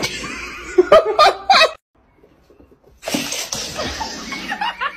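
A person laughing in a few loud, short bursts about a second in, cut off abruptly; a second of silence, then a steady hiss of room noise.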